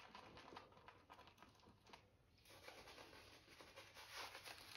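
Faint, rapid scratchy swishing of a shaving brush's bristles, worked over hard shaving soap and then brushed across the face near the end.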